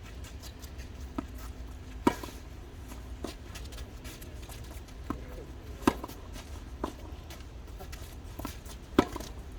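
Tennis balls struck by rackets in a doubles rally: a string of sharp hits one to three seconds apart, the loudest about two seconds in, near six seconds and near nine seconds, with fainter hits or bounces between, over a steady low hum.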